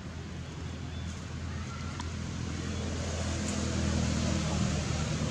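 Low, steady engine hum from a motor vehicle, growing louder about halfway through.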